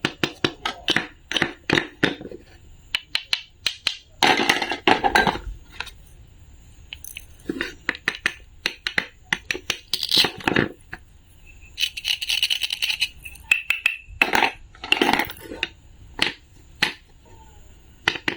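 Close-up handling sounds: clusters of sharp clicks and taps, a few longer rustling or crunching bursts, and a brief higher-pitched scraping about two thirds of the way through.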